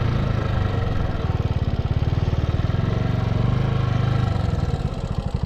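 Motorcycle engine running under way, a steady low pulsing beat, easing off slightly near the end.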